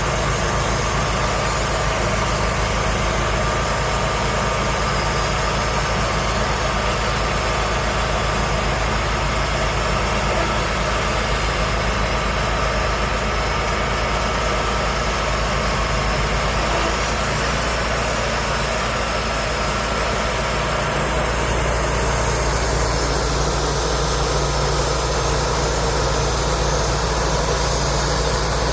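Wood-Mizer LT35 portable bandsaw mill running steadily, a constant engine drone with a strong hiss over it. About three quarters of the way through, a higher tone drops slightly and the sound gets a little louder.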